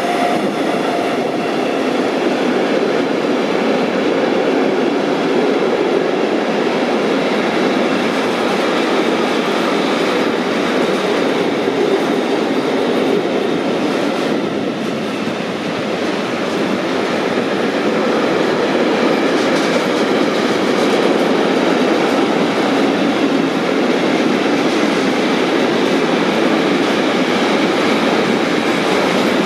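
Container wagons of a long intermodal freight train rolling past on an electrified main line: a steady, loud noise of steel wheels running over the rails, unbroken throughout.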